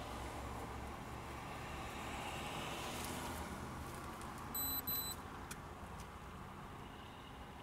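Road traffic passing outside, heard from inside a parked car's closed cabin: a steady rumble and hiss that slowly eases. Just under halfway through come two short, high electronic beeps in quick succession.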